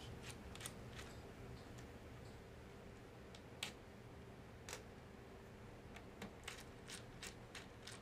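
Faint, scattered clicks and ticks of a small screwdriver working tiny screws out of a MacBook Pro Unibody's logic board, a few sharper ones in the middle and a quicker run of them near the end.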